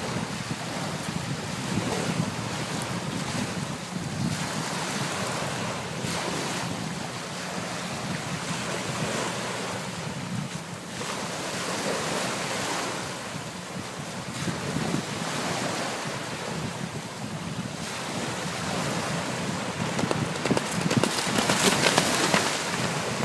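Small waves breaking and washing up the shore in a swelling, repeating rush, with wind buffeting the microphone as a low rumble. The surf grows louder near the end.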